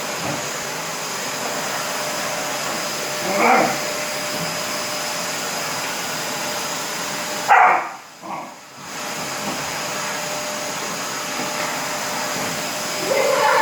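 Vacuum cleaner running steadily while a Labrador puppy barks a few times: once about three and a half seconds in, once more loudly halfway through, and again near the end. Just after the loud bark the vacuum's sound drops away for about a second, then comes back.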